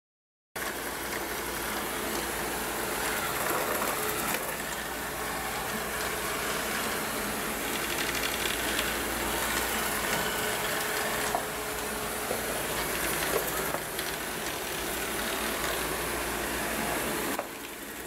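ILIFE A4 robot vacuum cleaner running, its motor and brushes making a steady whir that cuts in about half a second in and drops a little quieter near the end.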